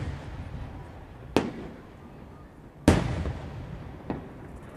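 Aerial firework shells bursting overhead: three sharp bangs, about a second and a half apart, the middle one loudest, each trailing off in a rumbling echo.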